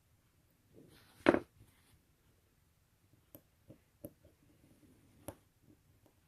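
Small metal parts and tools handled on a work surface while the screws go back into a watch caseback: a louder short clatter about a second in, then several light clicks and taps.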